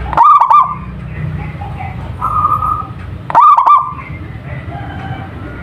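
Zebra dove (perkutut) cooing: two loud, rapid stuttering coo phrases about three seconds apart.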